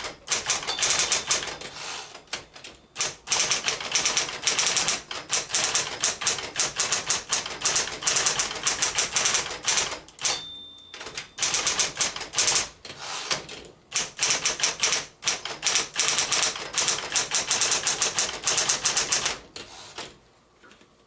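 Smith-Corona Coronet electric portable typewriter being typed on fast, a dense run of keystroke clacks, with a short ringing tone in a brief pause about halfway and the typing stopping near the end. The machine is running smoothly on fresh drive belts.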